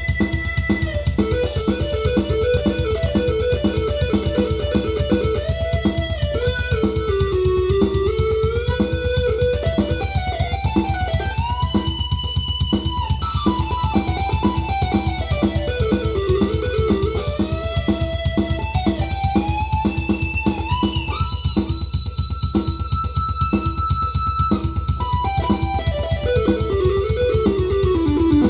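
Korg Krome synthesizer workstation playing an electric-guitar-like lead over a fast, steady drum pattern, the lead line sliding up and down between notes.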